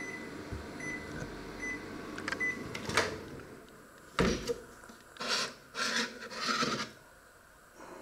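Panasonic microwave oven humming and giving short high beeps about once a second as its cycle ends. About three seconds in the door opens with a sharp clunk, followed by several knocks and scrapes as the plate is lifted out.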